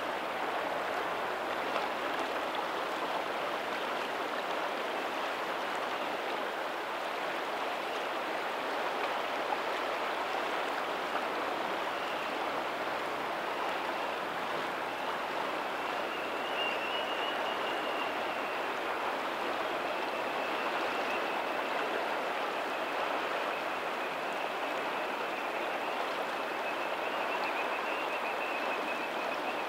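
Lagoon tidal outflow running over a pebbly shore: a steady rush of moving water. A faint, thin, high steady tone comes in about halfway through and holds.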